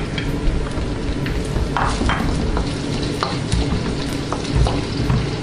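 Crushed garlic sizzling and frying in hot oil in a stainless steel wok. It is stirred with a wooden spatula, giving scattered short clicks and scrapes against the pan over the steady sizzle.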